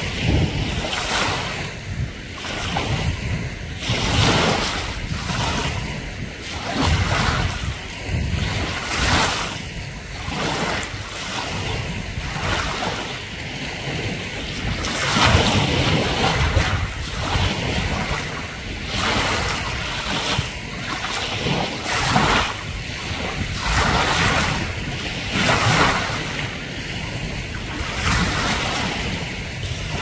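Choppy sea water lapping and splashing: a continuous wash with frequent small splashes, roughly one every second.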